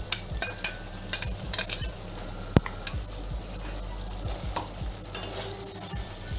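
A flat spatula scraping and knocking against a metal kadai as pieces of okra are stirred together with ground peanuts, over a sizzle of frying. Repeated short strokes, with one sharper knock about two and a half seconds in.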